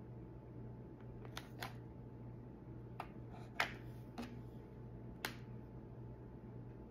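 A few light clicks and taps of small wooden craft pieces being handled and set in place while gluing, about six in all with the sharpest about halfway through, over a faint steady hum.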